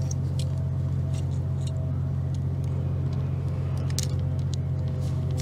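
A steady low machine hum, with a few scattered small clicks and taps from a small screwdriver working at the brush holder and brush spring of a DeWalt angle grinder.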